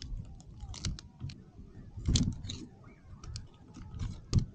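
Handling noises from working plastic-wrapped wooden spacers out from between the glued magnets inside an electric trolling motor's housing: a run of small clicks and rustles, with a sharper knock about two seconds in and another near the end.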